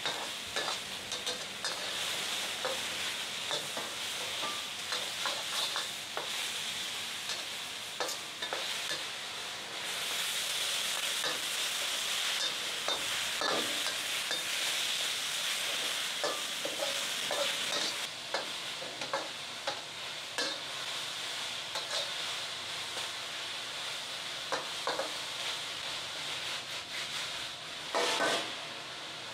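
Food sizzling in a wok over a propane wok burner while a metal ladle and spatula stir and scrape it, with frequent short clinks of metal on the wok. A brief louder burst comes near the end.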